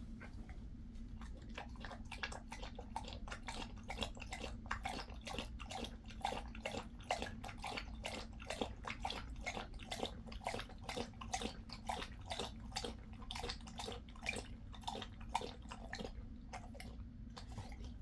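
A Jindo dog lapping water from a stainless steel bowl, a steady run of wet laps at about three to four a second that stops near the end.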